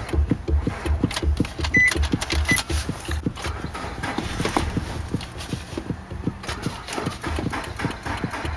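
Car engine cranking on the starter motor without catching, a steady rhythmic chug of about three compression strokes a second. The pulses weaken in the middle and pick up again near the end. The engine turns over but won't start.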